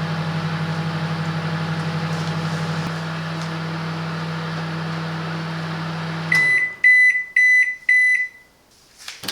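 Silvercrest SMWC 700 D1 microwave oven running a defrost cycle with a steady hum. The hum cuts off about six seconds in and is followed by five quick high-pitched beeps, the end-of-cycle signal. A click comes near the end.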